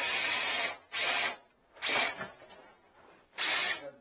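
Cordless drill run in four short bursts, the first about a second long and the rest about half a second each, with pauses between.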